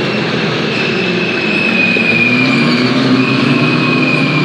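A pack of Formula 4 single-seater race cars passing at speed, several high-revving engines running together in a loud, continuous note. The pitches overlap, with one engine note rising about halfway through.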